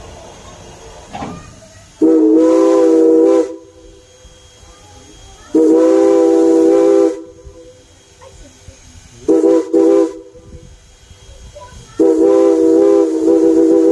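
Steam whistle of Strasburg Rail Road No. 89, a 2-6-0 steam locomotive, blowing the grade-crossing signal: two long blasts, a short one, then a long one. The train's running noise and hiss fill the gaps between blasts.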